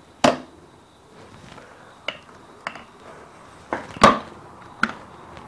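Sharp metal clunks and clicks, about six in all, as a Kawasaki KX250's clutch basket is worked by hand on its shaft in the open crankcase. The loudest comes just after the start and the next loudest about four seconds in. Without its spacer washer the basket sits flush on the gear and binds instead of turning.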